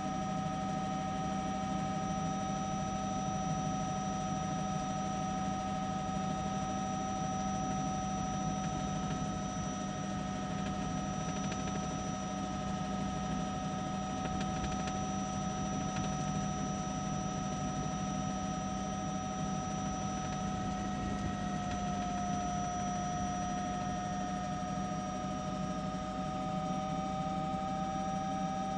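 Helicopter turbine engine running steadily: a constant high whine over a low drone, the whine dipping slightly in pitch about three quarters of the way through and then coming back.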